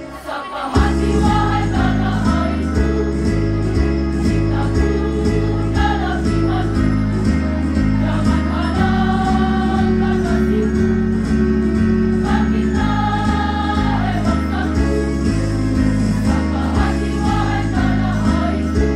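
Women's choir singing over instrumental accompaniment with a stepping bass line and a steady beat. There is a brief dip in level right at the start.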